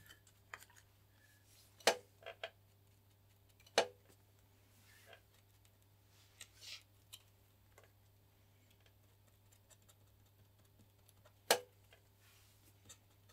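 Quiet hand work at a workbench: a handful of small, sharp clicks and taps as a wooden stick, plastic resin cup and small tools are handled, three of them louder (about two seconds in, about four seconds in and near the end), over a faint steady hum.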